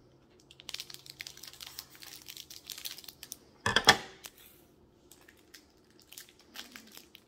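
Scissors cutting a plastic trading-card pack wrapper, which crinkles and tears as it is opened. About four seconds in comes one loud clatter as the scissors are set down on the hard floor, followed by lighter crinkles as the cards are slid out of the wrapper.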